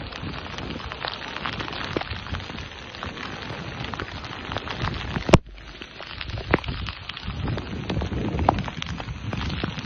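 Rain falling steadily, with many individual drops striking hard surfaces. A sharp click about five seconds in is followed by a brief dip in the rain's level before it builds back up.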